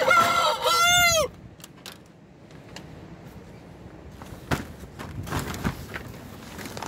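A rooster crowing: the end of a loud crow, a held note that bends and falls away about a second in. Then quieter rustling and a few knocks, one sharper about halfway through.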